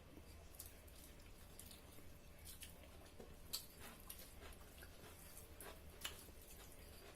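Near silence with faint, scattered clicks and smacks of eating and chewing, about a dozen over several seconds.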